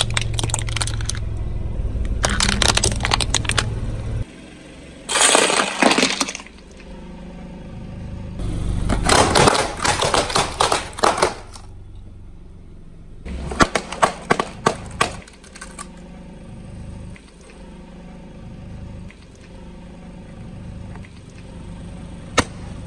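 A car tyre rolling over and crushing brittle things, heard as about five bursts of crunching and crackling a few seconds apart. The car's engine makes a low rumble under the first few seconds.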